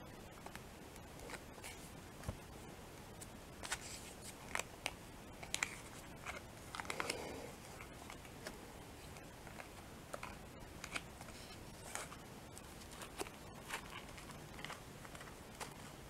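Faint, scattered crinkles and small clicks from fingers handling the foil wrapper of a chocolate umbrella close to the microphone, busiest in the middle with a longer rustle about seven seconds in.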